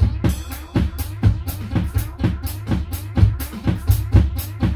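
Drum kit being played live: bass drum thumps under quick, close-set cymbal and drum strokes, in a busy, uneven groove.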